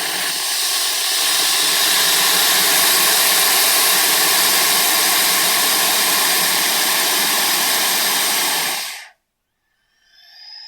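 A snake hissing: one long, loud, steady hiss of about nine seconds that stops fairly quickly. After a brief silence, a fainter, different sound begins just before the end.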